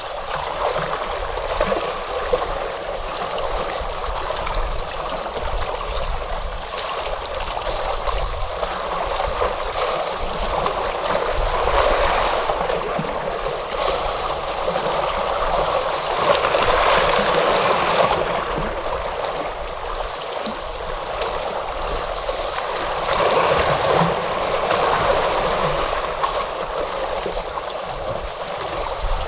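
Ocean waves washing onto a shore: a continuous rushing noise that swells in several slow surges and then eases back.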